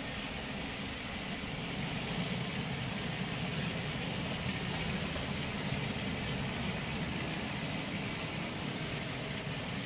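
Model trains running on the layout: a steady rumble with a hiss over it, a little louder in the middle.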